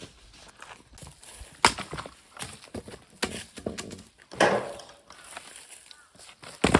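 Firewood being split by hand: four sharp knocks of a splitting tool striking logs, irregularly spaced one to two seconds apart, the third followed by a short clatter.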